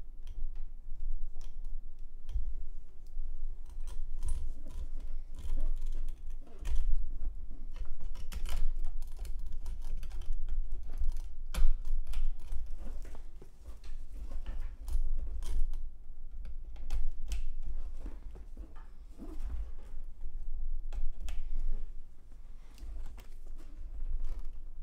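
Irregular clicks, taps and rustles of sleeved power-supply cables and their plastic connectors being handled and plugged in, with one sharper click a little under halfway through.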